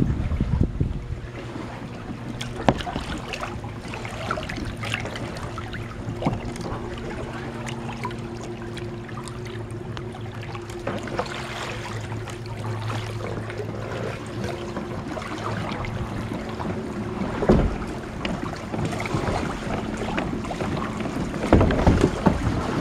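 Kayaks being paddled through a narrow canal: paddle strokes splashing and dripping, with scattered small clicks and knocks. There is a sharp knock about 17 seconds in and a cluster of louder knocks and splashes near the end, over a steady low hum.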